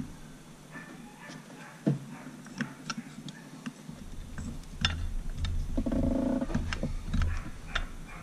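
Scattered light metal clicks and taps as a piston is worked down into a cylinder of a Mercury Thunderbolt 500 four-cylinder two-stroke outboard block during reassembly. A brief low voice-like sound comes about six seconds in.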